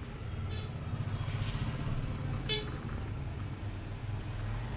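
Plastic toy truck rolling over gritty dirt ground, its hard plastic wheels making a steady low rumble.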